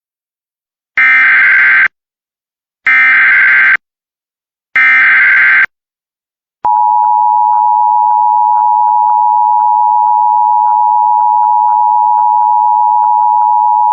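Emergency Alert System opening: three bursts of about a second each of buzzy SAME digital header data, a second or so apart, then the long steady attention-signal tone starting about two-thirds of the way in. Together they signal an incoming flash flood warning.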